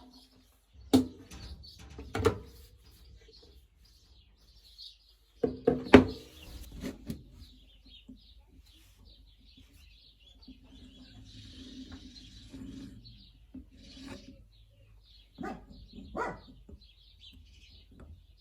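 A handful of sharp knocks and clatters, like wood and tools being set down and handled, with the loudest cluster about six seconds in. Small birds chirp throughout behind them.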